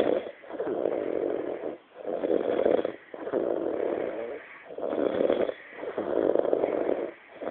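A sleeping person who has been drinking, snoring heavily. Each snore lasts about a second and the next follows after a short break, about six in all.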